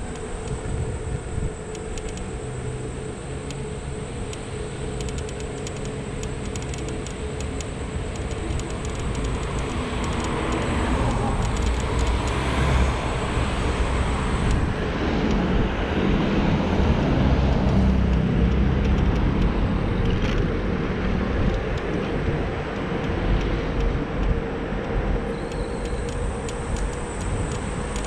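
Ride noise on a Xiaomi Mi Pro 2 electric scooter: steady low wind and road rumble with a faint constant hum, while car traffic passes and swells to its loudest about halfway through, then eases off.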